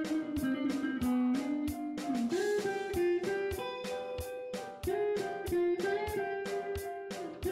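Background music: a melody over a quick, steady beat.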